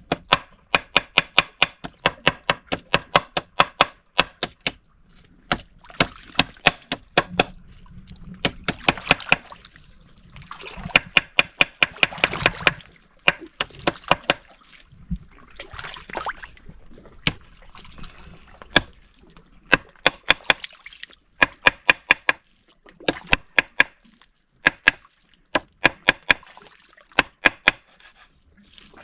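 Rapid runs of sharp knocks or chopping strikes, several a second, coming in bursts of a few seconds with short pauses between.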